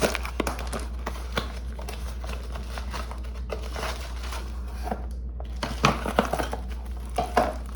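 Packaging of a pistol grip tripod being opened and its contents handled: rustling, with scattered clicks and knocks.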